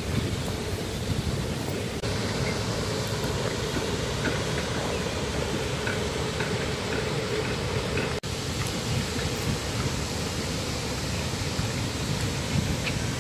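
Steady rushing outdoor background noise with no clear single source, broken by a brief dropout about eight seconds in.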